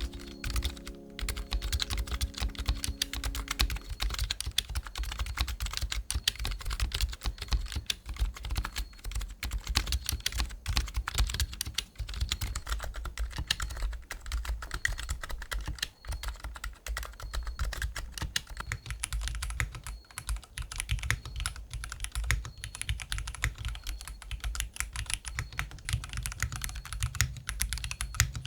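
Steady, fast typing on an M9N 40% custom mechanical keyboard, a dense stream of key clacks with deep low thuds. Music fades out in the first few seconds.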